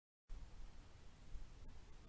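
Faint, even hiss with an uneven low rumble from a trail camera's microphone. It cuts in from dead silence just after the start, at a join between recordings.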